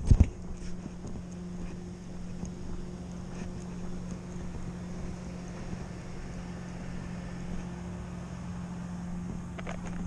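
A steady engine drone, one even hum that holds its pitch throughout. A single thump comes just after the start, and a few crunches of dry leaves underfoot come near the end.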